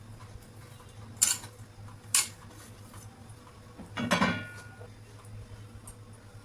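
Metal kitchen utensils knocking: two sharp clinks about a second apart, then a longer clatter with a ringing tone about four seconds in. A steady low hum runs underneath.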